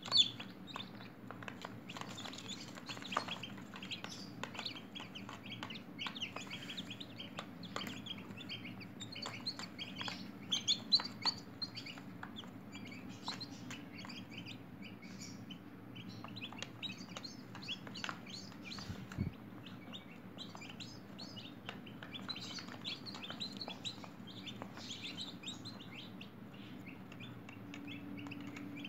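A brood of newly hatched chicks peeping nonstop, a dense chatter of short high chirps, over a steady low hum.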